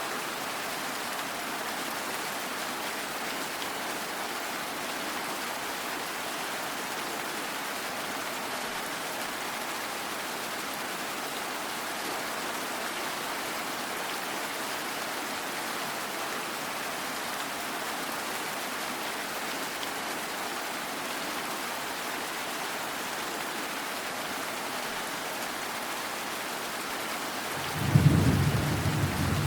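Steady rain. Near the end a sudden loud clap of thunder breaks in and rumbles on.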